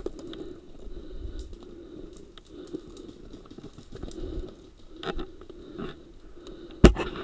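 Rustling movement noise from a player's body-worn camera and gear, with scattered ticks, a sharp click about five seconds in and a louder, very sharp click near the end.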